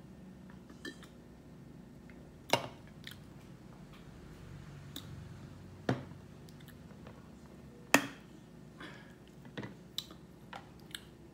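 A few sharp knocks and smaller taps of a beer can and a sauce bottle being set down and handled on a tabletop; the loudest knock comes about eight seconds in.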